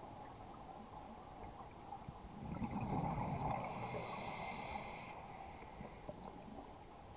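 A scuba diver breathing through a regulator underwater: one breath about two and a half seconds in, with a rush of bubbles and a faint regulator hiss lasting a couple of seconds, then a low steady underwater background.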